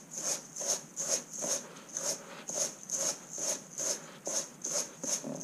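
Salt mixed with rye flour being rubbed between the palms in a metal bowl to crush the lumps: a gritty rubbing, repeated at about two and a half strokes a second.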